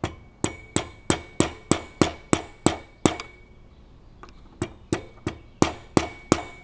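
A screwdriver tapping the float hinge pin into a Subaru/Robin small-engine carburetor. There are about ten quick metallic taps at roughly three a second, each with a short ring, then a pause of about a second and a second run of taps.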